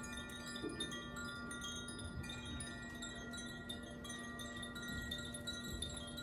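Tuned wind chimes being played, with frequent light strikes and many overlapping tones ringing on over one another, above a steady low hum.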